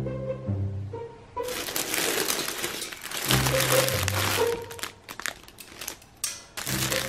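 Clear plastic packaging bag crinkling as it is lifted and handled, starting about a second and a half in and going on in bursts, over background music.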